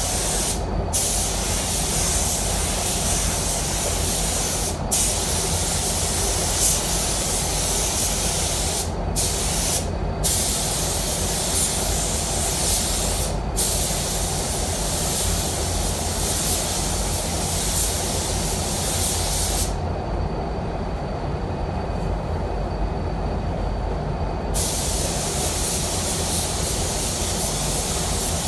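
Automotive paint spray gun hissing as it sprays a bumper, cut by short breaks where the trigger is released and a longer pause about 20 seconds in before spraying starts again. A steady low drone runs underneath.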